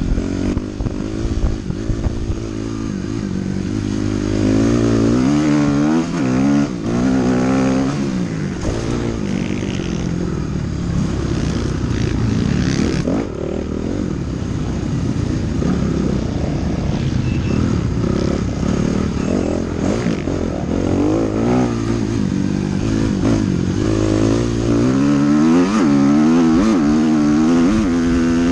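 Dirt bike engine under race load, heard from a camera on the rider: the revs climb and drop again and again as he works the throttle and gears, with a few sharp knocks from the bike over rough ground.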